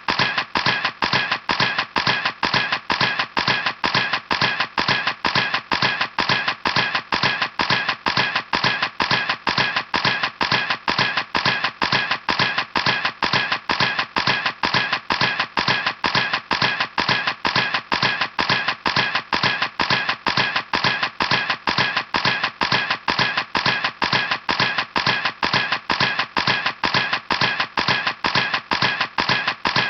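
Camera shutter clicking over and over at an even pace, about three clicks a second, with no break.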